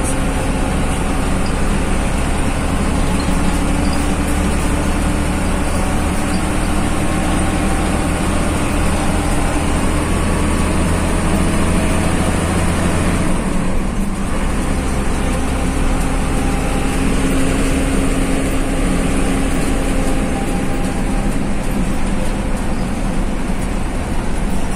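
Bus engine and road noise heard from inside the cabin while driving on a highway, a steady hum and rumble. About halfway through, the low engine note drops and changes.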